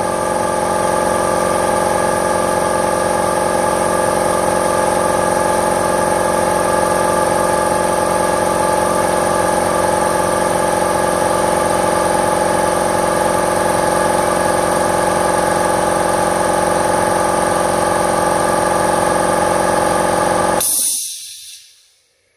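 Stanley 2.5 hp twin-piston belt-drive air compressor running steadily as it pumps up its tank toward its 145 psi cut-out. Near the end it shuts off abruptly as the pressure switch cuts out, with a short hiss of released air.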